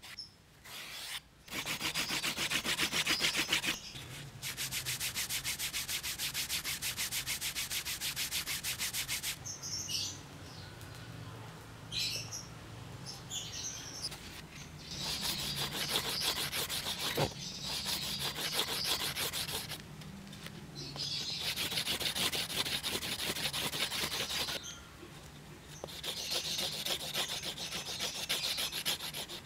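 Fast back-and-forth rubbing along the edge of a vegetable-tanned leather wallet with a wooden edge slicker, burnishing the edge. It comes in several bouts of quick, even strokes with short pauses between.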